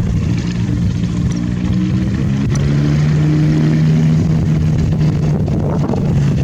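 Rotax 532 two-stroke engine and propeller of a Flyer GT ultralight aircraft running steadily in flight, its note growing louder about halfway through.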